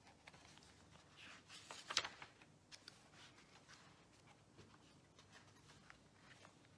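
Pages of a paperback book being handled and leafed through: soft paper rustles and flicks, busiest around one to two seconds in.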